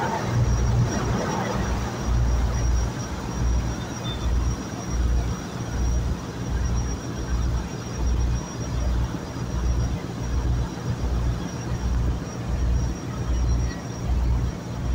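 Steady motor noise aboard a river boat, with a deep throb pulsing regularly a little faster than once a second and a thin high whine above it.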